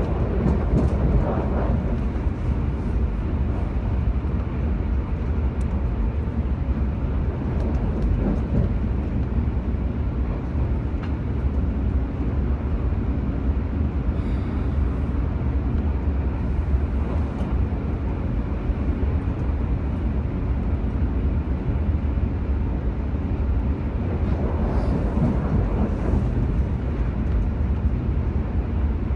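Steady low rumble of a moving vehicle, with constant road and engine noise.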